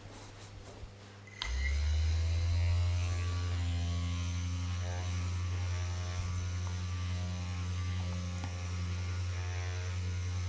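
An electric device switches on about a second and a half in and runs with a steady low hum.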